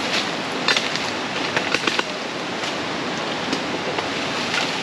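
Steady rushing of river water, with a few short knocks or clicks over it.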